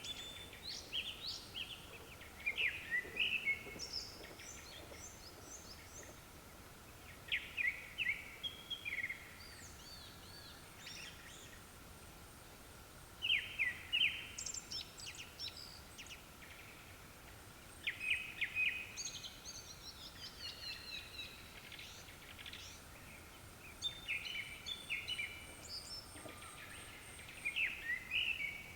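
Japanese thrush singing: bursts of fast, clear whistled phrases every few seconds, with short pauses between.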